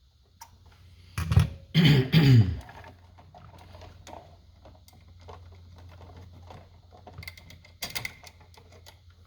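Light clicks and taps from handling a wall switch and its wires, with a brief loud sound that falls in pitch about a second and a half in.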